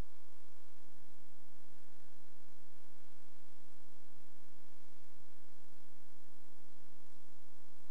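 Steady electrical mains hum and buzz, a set of fixed unchanging tones over a constant hiss.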